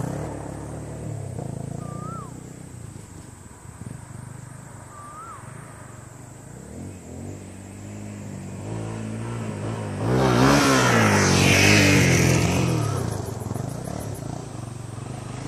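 A Honda CRF250L dirt bike's single-cylinder four-stroke engine rides away and fades. About halfway through it comes back, the revs rising and falling as the throttle is worked. It is loudest from about two-thirds of the way in, dips briefly and swells again at the end.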